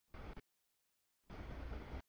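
Freight train rolling past a grade crossing: a low, even noise of the cars going by, picked up by a webcam microphone. The audio cuts in and out abruptly, with a short burst near the start, a gap, and the noise returning about a second in.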